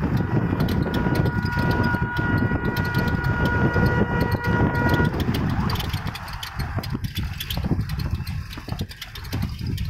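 Engine and road rumble of a moving vehicle, heard from on board. A steady high tone with overtones sounds over the rumble from about half a second in and stops at about five seconds.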